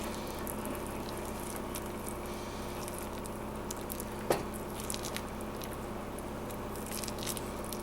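Hot, sticky peanut brittle mixture being poured and scraped out of a bowl onto a greased pan: faint soft sticky patter and light clicks, with one sharper click about four seconds in, over a steady low hum.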